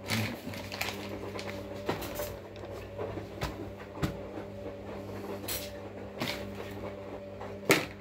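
Scattered clicks and knocks of a laptop being handled and tilted on a table, the sharpest near the end, over a steady low electrical hum.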